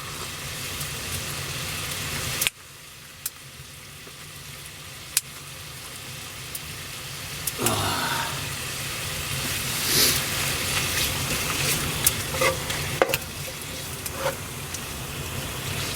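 Bacon frying in a pan: a steady sizzle with scattered sharp pops and spits of fat. It drops away suddenly about two and a half seconds in, then builds back up and gets louder.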